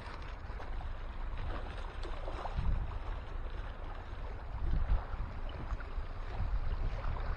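Wind buffeting the microphone: an uneven low rumble that swells a few times, over a steady rushing hiss.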